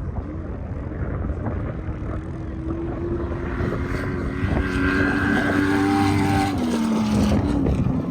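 An off-road vehicle engine running at steady revs, growing louder about halfway through, its pitch dropping near the end, with wind buffeting the microphone.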